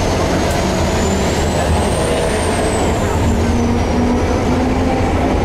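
Heritage electric tram running along the track, heard from on board: a steady low rumble of wheels and running gear, with a thin high whine that rises and then falls in pitch.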